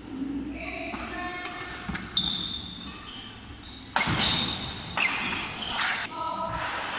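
Badminton rackets striking the shuttlecock in a doubles rally: four sharp hits, the last three about a second apart. Short high squeaks, likely court shoes on the wooden floor, come between them.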